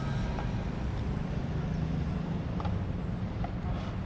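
Steady low outdoor rumble, with a few faint light clicks about half a second, two and a half and three and a half seconds in.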